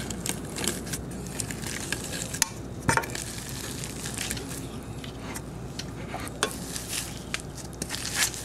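Boiled mini potatoes being mashed with a plastic potato masher in a metal saucepan: soft squishing with irregular knocks and scrapes of the masher against the pot.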